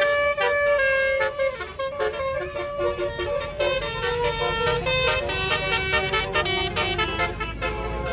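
Indonesian tour bus "telolet basuri" multi-trumpet air horn playing a melody: several notes sounding at once, stepping to new pitches every fraction of a second.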